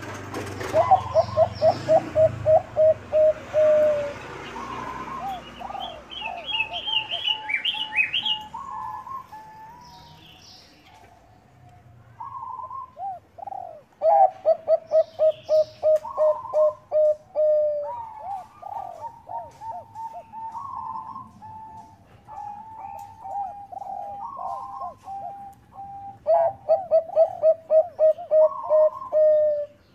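Zebra dove (Bangkok perkutut) cooing in repeated phrases. Each phrase is a fast run of short, clipped notes, about ten a second, mixed with higher, drawn-out coos. The loudest phrases come at the start, about halfway through and near the end.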